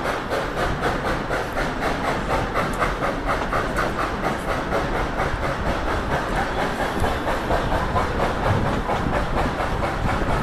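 Narrow-gauge steam train under way, heard from an open passenger coach: a steady rapid beat of about four strokes a second, with hissing steam and the rattle of the cars.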